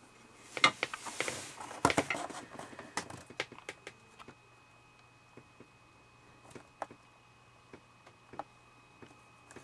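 Plastic blister packaging on a carded action figure being handled. A cluster of clicks and crackles comes in the first few seconds, followed by scattered single clicks.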